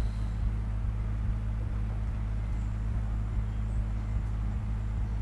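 Steady low background rumble with a faint hiss and no distinct events.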